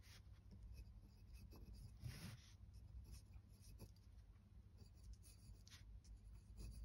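Faint scratching of a glass dip pen nib writing in ink on rough watercolour paper, in a few short strokes, the longest about two seconds in.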